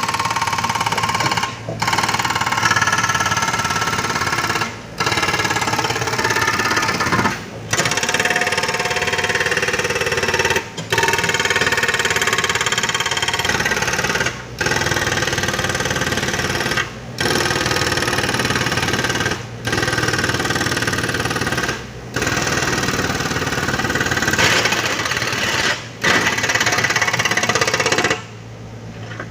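Diesel engines of heavy construction machinery, an excavator and dump truck, running loud and steady. The sound drops out briefly every two to three seconds.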